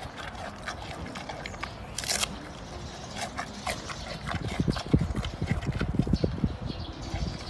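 Giant panda chewing bamboo: crisp crunching and crackling snaps, then from about halfway a run of dull, rhythmic chewing thuds, several a second, which are the loudest part.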